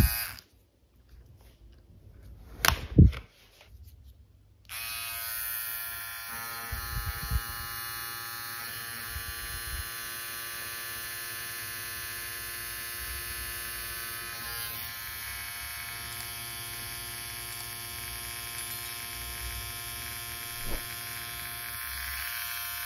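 Philips OneBlade 360 electric trimmer running steadily on its own: a motor buzz made of many even, unwavering tones. It is switched on about five seconds in and off at the very end, and measures about 62 dB. A sharp knock comes shortly before it starts.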